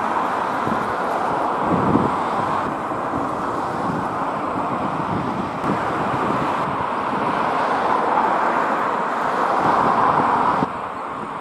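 Steady outdoor background noise of passing road traffic, with wind on the microphone. It drops suddenly in level near the end.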